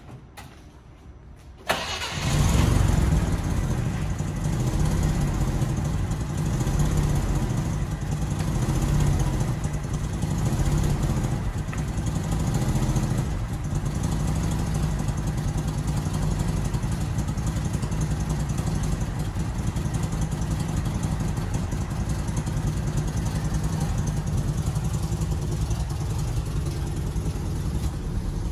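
1962 Mercedes-Benz 300SE's fuel-injected straight-six starting from cold: it catches suddenly about two seconds in, rises and falls in level over roughly the first dozen seconds, then settles into a steady idle.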